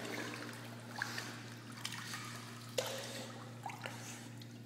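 Pool water splashing and trickling as a pit bull puppy paddles, over a steady low hum, with a sharp knock about three seconds in.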